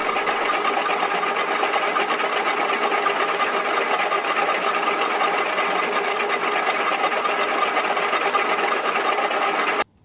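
Small milling machine running steadily with a whine from its motor and gearing as the cutter takes a very light finishing pass, cutting only thin shavings. The sound stops abruptly near the end.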